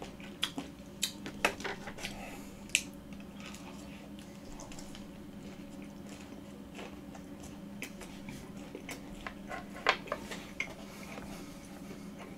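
Close-miked chewing with the mouth closed: scattered soft wet clicks and smacks of soft fruit or macaron being eaten. A louder click about ten seconds in comes from a metal fork being set down.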